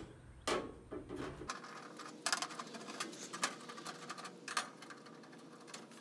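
A hand-held quarter-inch hex nut driver turning screws out of a dryer's sheet-metal back panel, making light metallic clicks and scrapes, with a few sharper clicks along the way.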